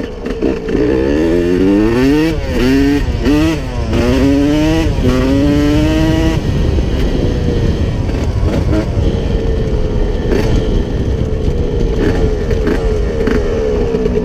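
1992 Honda CR125's two-stroke single-cylinder engine being ridden. For about the first six seconds the revs rise and drop again and again in quick pulls, then the engine runs at a steadier, slowly falling pitch.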